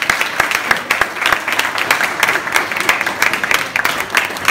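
Audience applauding, many hands clapping together in a dense, irregular patter that eases off near the end.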